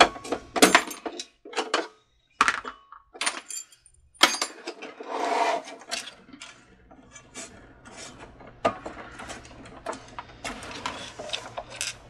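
Irregular clicks, knocks and short scrapes of hard plastic and metal parts being handled as the plastic end housing of an old Cricut Expression cutting machine is worked loose from its metal side plate.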